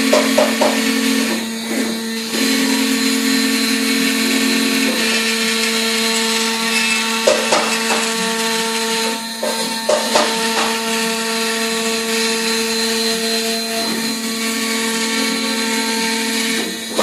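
Large CNC router cutting MDF: the spindle runs with a steady high-pitched whine over the hiss of the bit in the wood. Its tones shift and dip briefly a few times, about two seconds in, around seven to ten seconds, and near the end.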